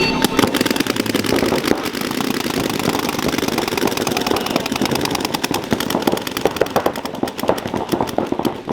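Paintball markers firing rapid strings of shots, several markers overlapping, so the pops run together into a near-continuous rattle.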